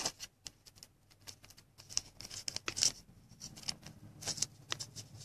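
Light clicks, taps and rustles of trading cards and plastic card holders being handled, with a card being slid into a sleeve.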